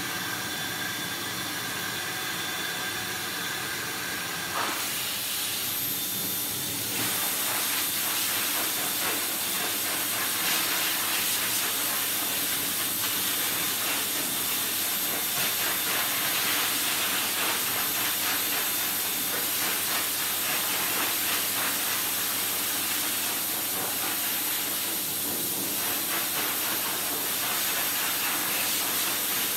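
Pet grooming dryer blowing air through its hose onto a wet dog's coat: a steady rushing hiss with a motor whine under it. About five seconds in the sound changes, and from about seven seconds it is a little louder, with a thin high whistle on top.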